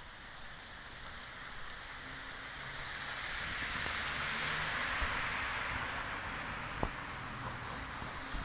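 A passing road vehicle: its noise swells to a peak about halfway through, then fades.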